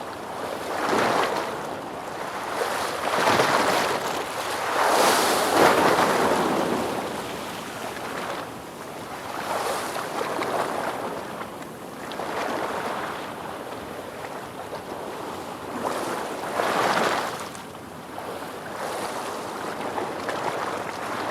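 Ocean waves breaking and washing on a shore, one swell after another every few seconds, the loudest around five to six seconds in.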